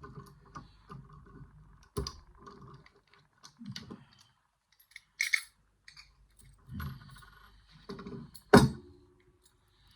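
Metal levers from a lever safe lock clinking and clicking as they are handled and lifted out one at a time, among small handling noises. A sharp metallic clink near the end is the loudest sound, with a brief ring after it.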